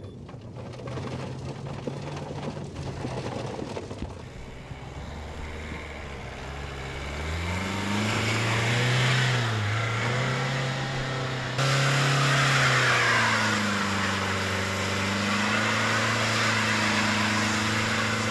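Peugeot 207 hatchback's engine revving hard under the load of a towed caravan, its note rising and falling. From about eight seconds in it is joined by a loud hiss of the front wheels spinning in wet mud and grass.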